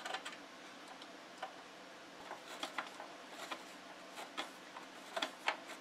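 Faint, irregular small clicks and scrapes of a screwdriver turning slotted screws into a sheet-metal radio enclosure, in short clusters.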